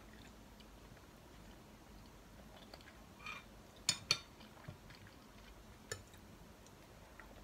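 Metal spoon clinking against a ceramic soup bowl while scooping soup. Two sharp clinks come close together about four seconds in, with a few softer taps around them.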